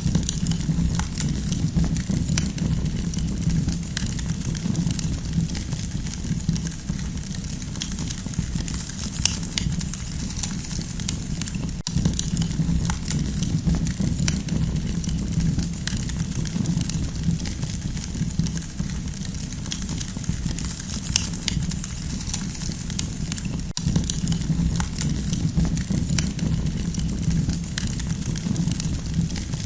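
Campfire crackling: frequent small sharp pops and snaps from the burning wood over a steady low rumble of the flames.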